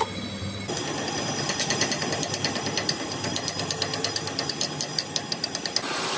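Angle grinder dressing the weld bead that joins a broken steel camshaft, a fast, irregular crackling rattle as the disc bites the weld over a faint steady whine. It changes near the end.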